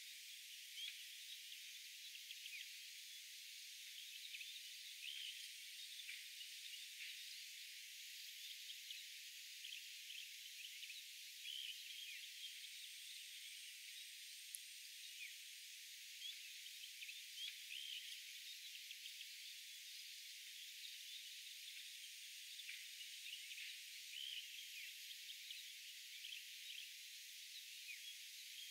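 Faint outdoor nature ambience: many short chirping calls over a steady high hiss, with a thin high whine coming and going.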